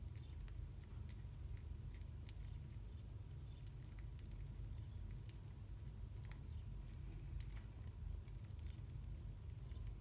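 Budgerigars pecking at and cracking seeds from a hand: irregular small clicks, several a second, over a low steady rumble.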